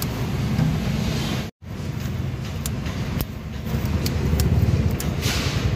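Steady low rumble of passing road traffic, with a few light clicks over it. The sound cuts out completely for a moment about a second and a half in.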